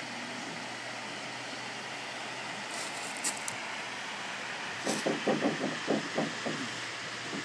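Steady, rushing rumble of jet aircraft passing high overhead. About five seconds in, a rapid run of short, low knocks lasts nearly two seconds.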